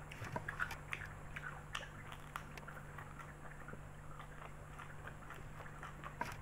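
Close-miked mouth sounds of a person chewing and biting spaghetti and raw kenikir leaves: many short, irregular clicks over a steady low hum.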